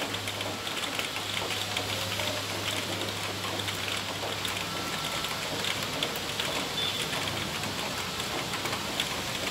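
Heavy rain falling steadily, with countless drops striking the corrugated metal roof in a dense run of sharp ticks. A low steady hum runs underneath, strongest for the first half.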